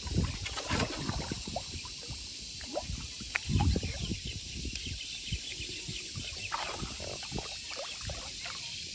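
Water splashing and sloshing as a large hooked fish thrashes at the surface beside a man wading in the shallows, in irregular bursts with the biggest about three and a half seconds in, over a steady background hiss.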